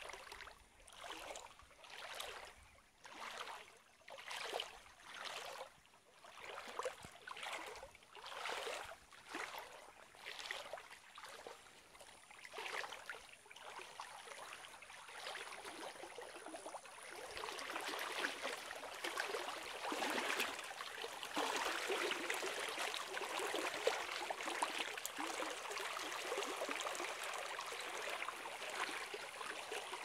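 River water sloshing in a rhythm of about one surge a second, like something moving steadily through the water. Past the halfway mark this gives way to a steadier, louder rush of flowing water.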